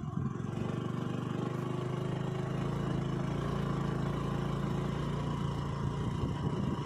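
Motor scooter's small engine running steadily under load while climbing a sand dune, a steady drone that swells just after the start.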